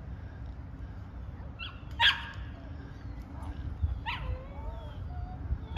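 A dog barking, once about two seconds in and again about two seconds later, with a short whine after the second bark and another bark at the very end.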